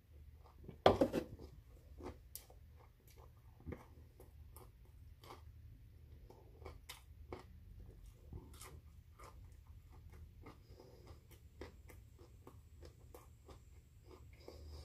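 Broccoli being chewed close to the microphone, a run of small crunching clicks. A single loud knock comes about a second in.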